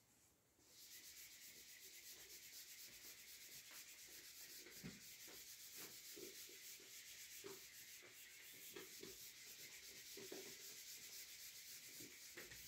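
Faint rubbing of a whiteboard eraser wiping marker off a whiteboard, in repeated short strokes.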